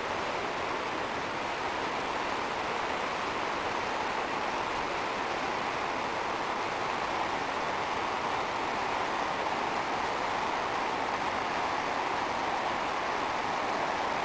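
Steady rushing of running water, an even noise with no breaks.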